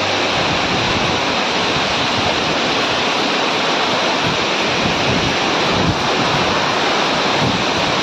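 Steady rushing of a waterfall, with wind buffeting the phone's microphone in uneven low rumbles.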